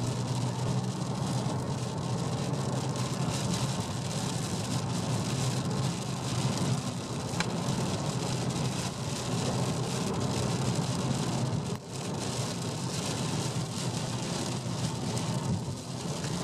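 Steady road and engine drone heard from inside a moving car on wet roads, with a constant hiss of rain and tyre spray.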